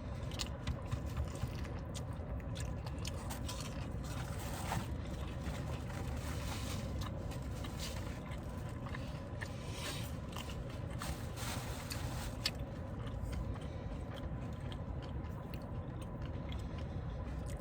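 Close-miked eating of fried chicken: chewing and biting with many small irregular crunches and mouth clicks, over a faint steady background hum.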